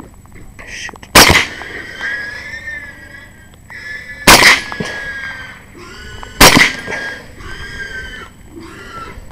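Three suppressed rifle shots from a short-barrelled LWRC Six8 A5 (6.8 SPC) fitted with a Rugged Surge 7.62 suppressor, about three and then two seconds apart. After each shot the wounded wild boar gives a high squeal.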